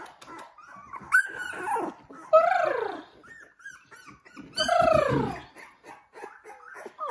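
Two-week-old Labrador Retriever puppies whining and crying: three main drawn-out cries that slide down in pitch, about one, two and a half and nearly five seconds in, with smaller whimpers between.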